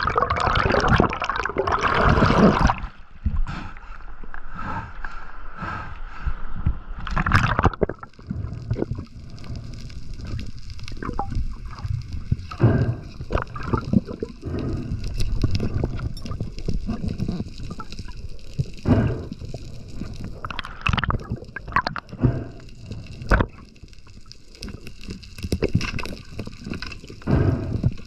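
Underwater sound through a head-mounted camera housing, muffled. Loud gurgling bubbles for the first few seconds and again briefly around seven seconds in, then a lower water wash with scattered knocks and clicks as the diver's gloved hands and knife work on a speared fish.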